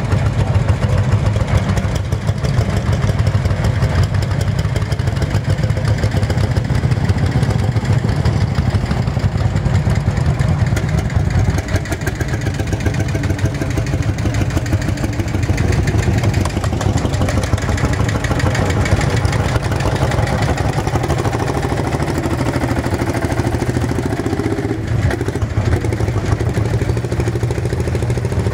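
Lanz Bulldog tractor's single-cylinder hot-bulb two-stroke engine chugging steadily as the tractor drives across ploughed ground, each firing stroke a distinct beat.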